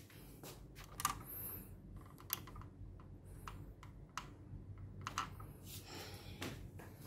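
Faint, irregular light clicks and taps, about a dozen scattered unevenly, over low room noise.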